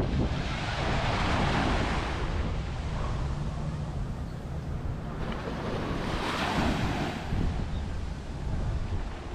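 Surf washing up on a sandy beach, two waves swelling and hissing about a second in and again about six seconds in, with wind rumbling on the microphone throughout.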